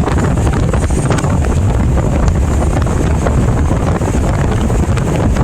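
Wind buffeting the microphone over the steady low rumble of a car driving.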